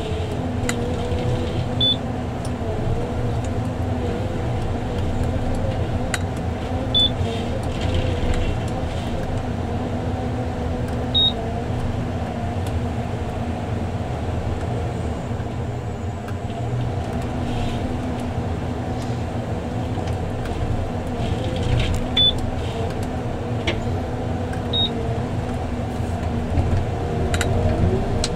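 John Deere 1170G forest harvester's diesel engine and hydraulics running steadily, heard from inside the cab, with the drone's pitch wavering slightly as the crane and harvester head work. Short high beeps sound several times.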